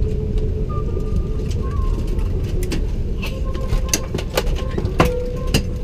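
Steady low rumble inside the passenger cabin of an Airbus A380 on the ground after landing, with a few sharp clicks and taps in the second half.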